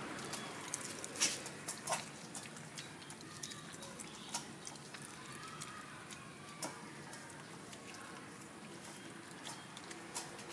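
Small Jack Russell–Shih Tzu cross dog chewing raw fish: irregular clicks and crunches of the jaws and mouth, the two loudest in the first two seconds.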